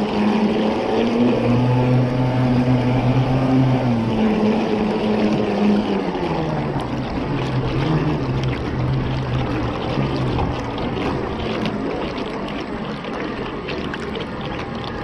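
RC model boat running across choppy water, heard from a camera mounted on its bow: a motor hum that shifts up and down in pitch and fades out after about ten seconds, over steady splashing of water against the hull.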